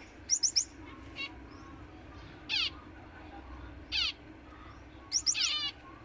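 Caged finches giving short, high calls. There is a quick run of three notes right at the start, single calls spaced through the middle, and a close cluster of calls near the end.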